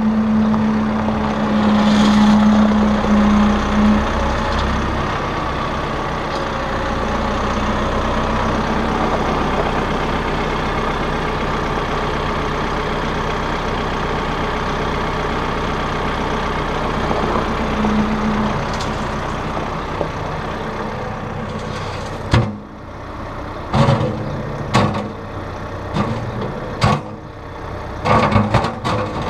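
Massey Ferguson 1759 compact tractor's diesel engine running steadily, a little louder in the first few seconds. Near the end comes a series of sharp knocks and clicks.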